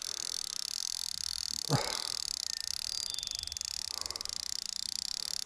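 A chorus of frogs calling as a steady, high, fast-pulsing trill, with one short sound sliding sharply down in pitch about two seconds in.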